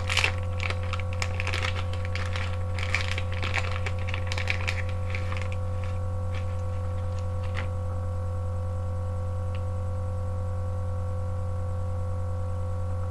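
A small paper pack of stone sinkers being torn open and handled: crinkling and small clicks for the first five seconds or so, then only a few scattered clicks. A steady hum runs underneath.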